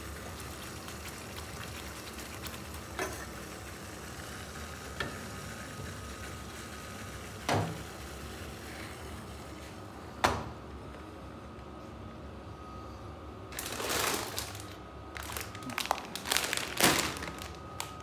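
Kitchenware handled over a steady hiss: a few separate sharp knocks of a steel pot lid and pans, then a plastic bag of dried fusilli pasta crinkling in a run of bursts over the last few seconds.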